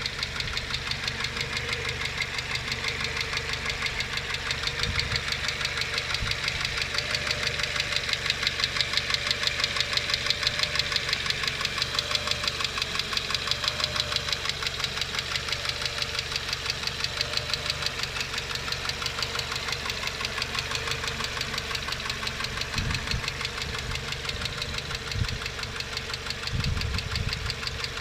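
Renault Logan K4M 1.6-litre 16-valve petrol engine running steadily with a fast, even ticking from its hydraulic lash adjusters: the lifters are knocking. A few low thumps come in near the end.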